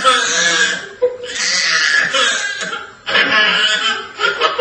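People laughing, in three long stretches with short pauses between them.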